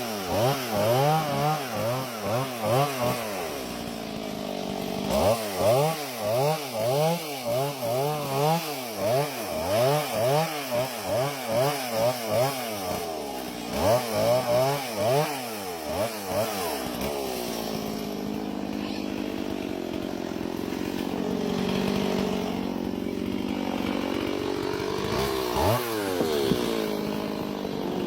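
Small engine revved up and down over and over, about twice a second, with short breaks. About two-thirds of the way through it settles to a steadier speed with slower rises and falls in pitch, then gives one quick rev near the end.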